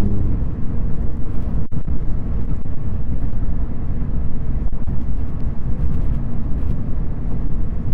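Scion FR-S four-cylinder engine and road noise while the car is being driven, a steady low drone with a brief break in the sound about a second and a half in and again near the middle.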